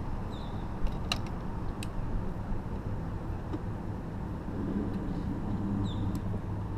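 An engine running steadily with a low rumble, with a few short bird chirps and a couple of sharp clicks over it.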